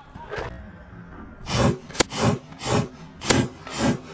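Paintball marker firing single shots, about one every second and a half, over a rhythmic rasping at about two strokes a second.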